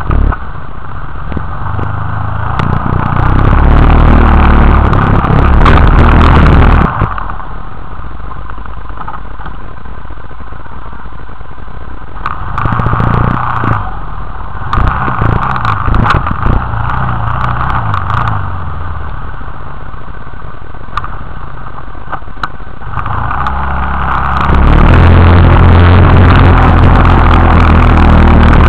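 Motorcycle engine running at a low, steady idle and revved hard three times: a long burst a few seconds in, a choppier series of blips in the middle, and a sustained high rev near the end. Scattered sharp clicks of handling sit over it.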